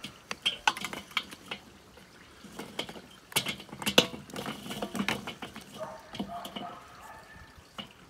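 Charcoal briquettes clacking against each other and against the metal charcoal grate of a Weber kettle as they are placed by hand into rows: a scatter of small knocks and scrapes, busiest in the middle.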